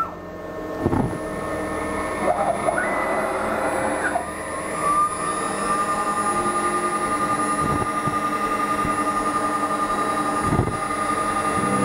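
A 6040 CNC router starting its 3D relief roughing program, its spindle and stepper motors whining. The pitch shifts up and down over the first few seconds, then settles into a steady high whine.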